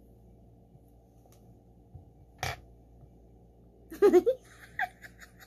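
A woman's muffled laughter behind her hand, a few short bursts about four seconds in, after a single short puff of breath a couple of seconds earlier.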